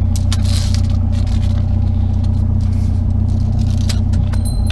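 Vehicle engine idling steadily, with a few light knocks and rattles over it.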